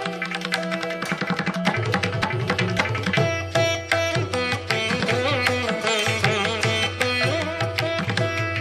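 Instrumental background music in an Indian classical style: hand-drum strokes under a plucked-string melody with sliding notes, over a low drone that comes in about two seconds in.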